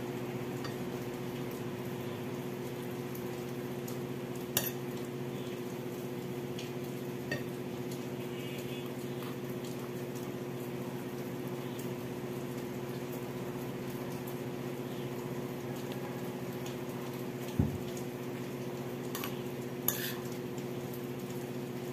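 A few short sharp clinks of cutlery and dishes during a meal, spread across several seconds over a steady low hum.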